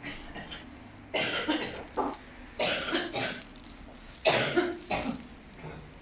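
A person coughing several times, in three short bouts.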